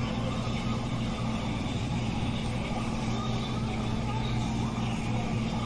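Phone recording of a public big-screen screening: a steady, noisy roar with a constant low hum, the screen's sound and the crowd blurred together.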